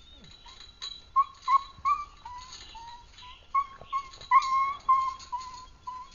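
A dog whining: a quick series of short high whines, several gliding up or down, with one longer held whine a little past four seconds in.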